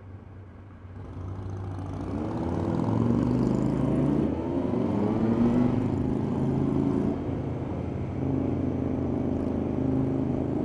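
Motorcycle with no baffles in its exhaust, revving hard as it pulls away and accelerates through the gears. Its pitch climbs and drops back with each shift, over steady engine and road noise.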